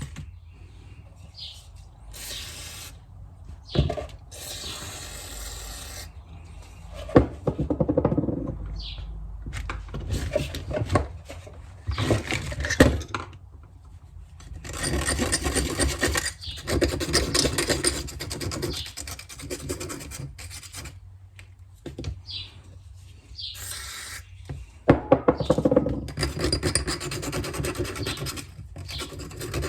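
Scraping and scrubbing at a small-engine carburettor float bowl, in irregular strokes with pauses, to clean out the varnish left by stale fuel.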